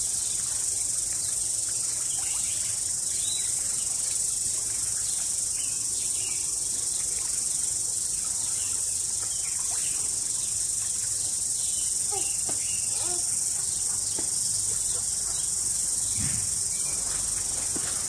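Steady, high-pitched insect chorus, shrill and unbroken, with a few faint short sounds lower down.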